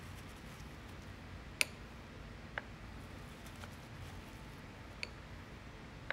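Quiet room noise with a handful of light, sharp ticks scattered about a second apart, the loudest about a second and a half in: small handling clicks from the resin work.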